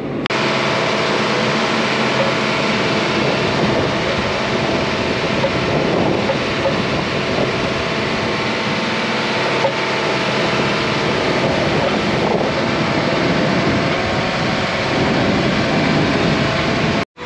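John Deere self-propelled sprayer running steadily as it drives across a field, a constant engine and machine hum with some wind noise.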